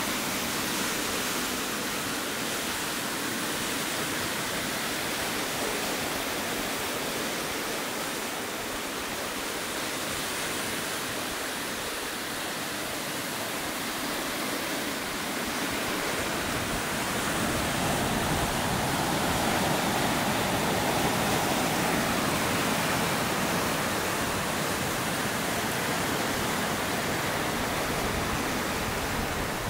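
Ocean surf breaking over rocky ledges and washing back: a steady rushing wash that swells louder past the middle.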